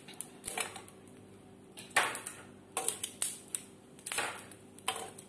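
Scored chestnuts crackling and popping as they roast on a hot metal plate over an electric stove burner: several sharp, irregular pops a second or so apart.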